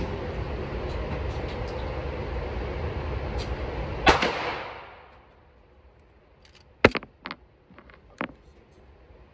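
Steady vehicle running noise, cut by a loud thump about four seconds in, after which it dies away. Three short sharp cracks follow near the end, the first the loudest.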